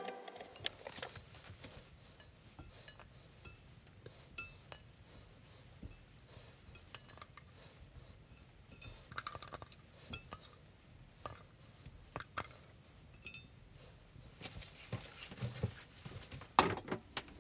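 Scattered light clinks and taps of pieces of sea bass being set by hand into a ceramic nabe pot of vegetables and tofu, with a few louder knocks near the end.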